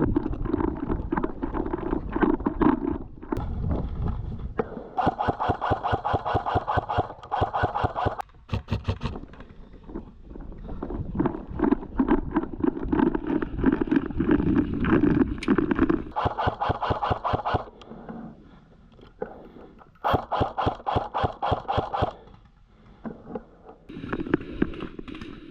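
Airsoft guns firing on full auto: long, fast rattling bursts of shots with short pauses between them.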